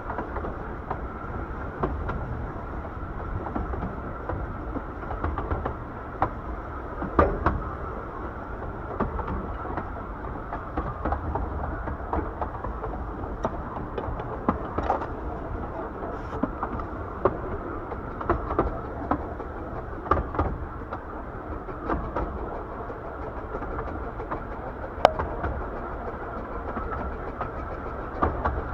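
15-inch gauge miniature railway train running along the line: a steady rumble of wheels on rail, with irregular sharp clicks and knocks as the carriages roll over rail joints and rattle.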